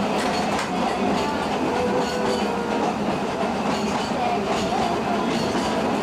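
Vintage wooden trolley car running along the track, heard from inside the car: a steady rumble of wheels on rail with irregular clicks over the rail joints and the rattle of the car body.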